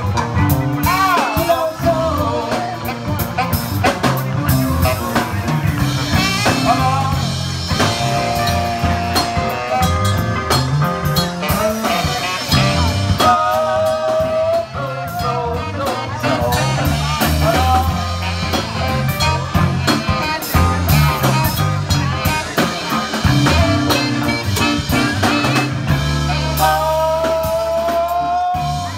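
Live soul band playing: singing over drum kit, bass guitar and electric guitar.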